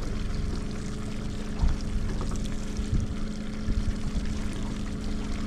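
Outboard motor of a fishing boat running steadily at trolling speed, with water splashing and lapping at the hull and a few dull knocks.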